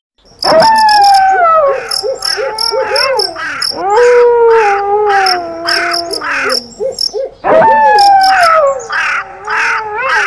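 Spooky intro sound effect: three long, wavering cries that slide down in pitch, over a fast, high-pitched, cricket-like chirping.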